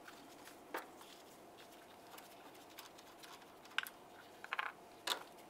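Light metallic clicks and taps of wrenches on a battery terminal nut and the cable clamp being handled: one click just under a second in, then a handful more from about four seconds on.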